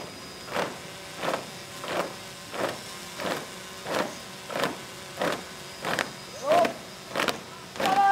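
A troop marching in step, boots striking the pavement together in a steady beat of about one and a half footfalls a second.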